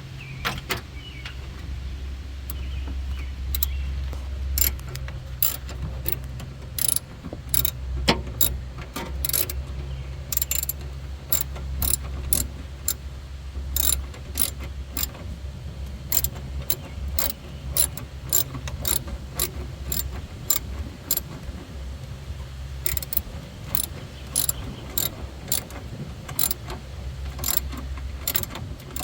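Irregular clicks and clacks of a plastic air cleaner box and its fasteners being handled and worked into place on the engine, over a low steady hum.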